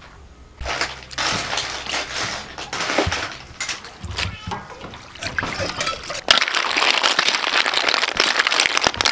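Water splashing as basil leaves are rinsed, then, after a sudden cut about six seconds in, river snails in their shells sizzling and rattling in a metal wok as they are stir-fried and stirred with a metal ladle, a dense steady crackle.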